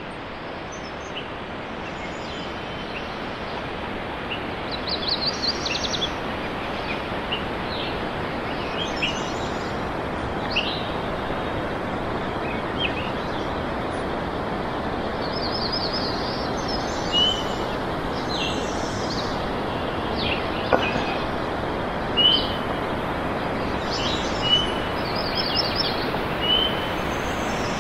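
Small songbirds singing over a steady rushing background noise, with repeated rapid high trills and short chirps scattered through.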